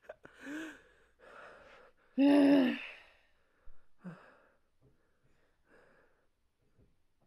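People sighing and gasping with heavy out-breaths. One loud voiced sigh comes about two seconds in, then the breaths grow quieter and sparser.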